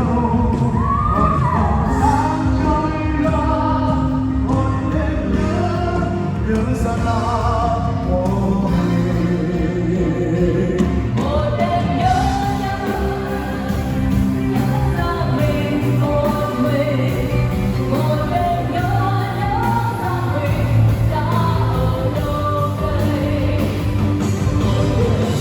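A live band with a female lead singer playing a slow pop song through a large line-array PA system. The sung melody glides up and down over a steady bass throughout.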